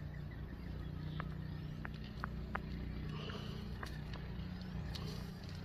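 A few faint, sharp clicks of crimping pliers working a blue connector onto a thin wire, over a steady low hum.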